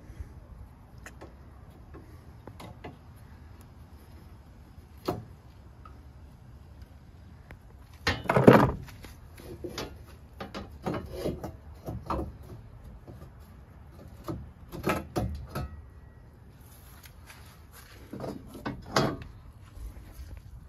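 Scattered knocks and rattles as the front panel of a truck-mount carpet-cleaning machine and tools are handled. The loudest is a clatter of several knocks about eight seconds in, with further bursts of rattling later on.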